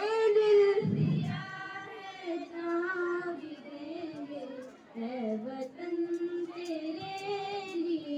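A group of schoolgirls singing a patriotic song together into microphones, in long held notes that glide between pitches. A low thump sounds about a second in.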